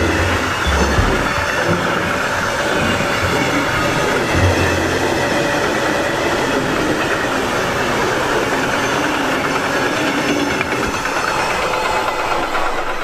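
Freight wagons rolling past at speed, a steady loud rush of steel wheels on the rails.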